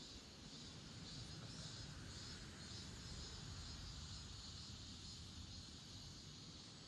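Faint outdoor ambience: a steady low rumble under a continuous high-pitched chirring.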